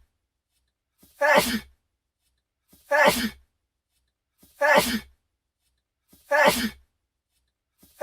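A man's sneeze looped over and over: each time a faint intake, then a sharp sneeze, repeating about every second and a half. Four full sneezes, with a fifth starting right at the end.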